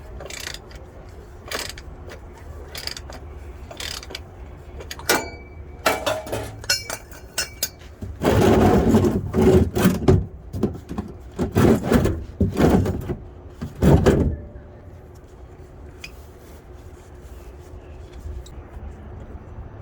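Clicks, knocks and scrapes of hand work on a Toyota 4Runner's oil filter housing cap as it is turned loose, loudest in a cluster of noisy strokes about halfway through.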